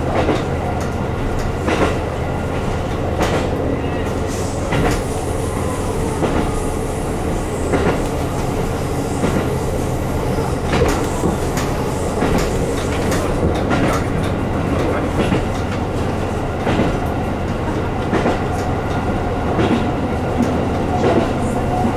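JR Hokkaido KiHa 150 diesel railcar running along the line, heard from inside the front of the car: the steady hum of the diesel engine and the rumble of the wheels, with a sharp click of the wheels over a rail joint every second or two.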